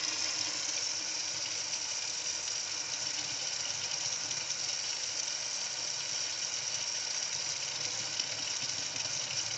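Kitchen tap running steadily, the stream of water splashing into the sink and down the drain and spattering off a handheld water tester held in it.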